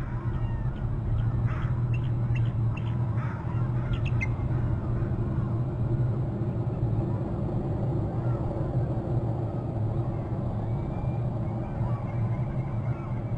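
Bald eagle calling: a quick series of about ten short, high piping notes in the first four seconds, over a steady low rumble.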